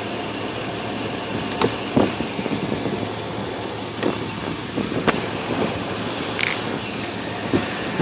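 1999 GMC Sierra pickup's engine idling steadily, with several sharp clicks and knocks of plastic parts being handled at the under-hood fuse box and a short scrape near the end, as a fuse is worked out.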